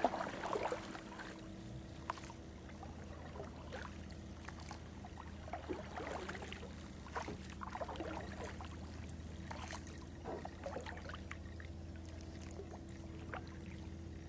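Kayak paddle strokes in shallow water: scattered small splashes, with water pouring and dripping off the blade. A steady low hum runs underneath.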